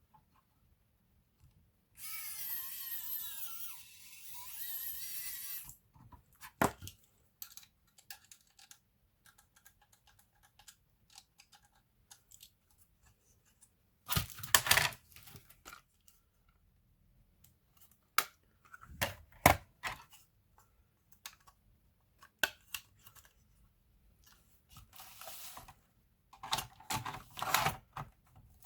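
Hands working on a laptop: a few seconds of rasping, tearing-like noise about two seconds in, then scattered clicks, taps and knocks of small plastic and metal parts and tools.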